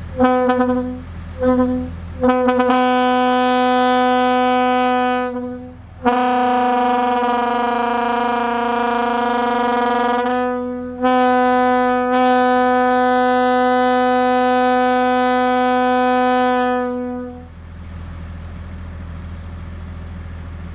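Leslie A125 locomotive air horn blown on one steady note. It gives two short toots, then three long blasts of several seconds each, and stops about three-quarters of the way through.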